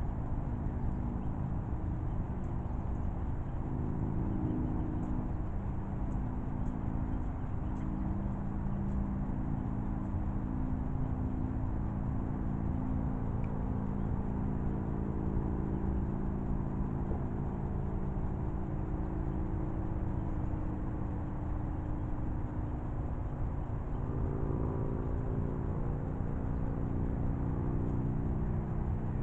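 Steady engine drone whose pitch shifts slowly up and down over several seconds, over a low rumble.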